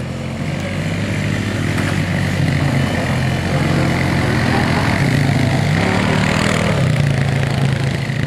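ATV (quad) engine running close by, growing louder over the first few seconds, with a brief rev up and back down a little past the middle.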